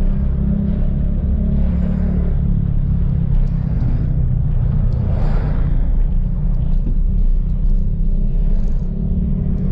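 Steady low rumble of a car driving in traffic, engine and road noise together, with a louder rush about five seconds in as a bus goes by close alongside.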